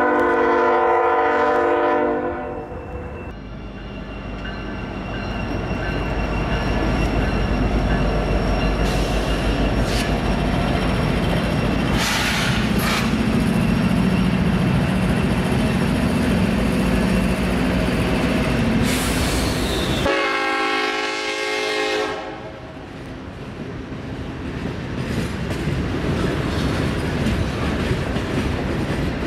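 Diesel freight locomotive air horn sounding a steady chord that cuts off about two seconds in; then diesel locomotives pass close with a deep engine rumble, another horn blast about two-thirds of the way through, and freight cars rolling and clattering over the rail joints near the end.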